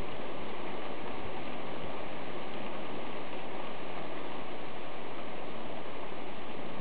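Thunderstorm rain falling steadily, an even hiss.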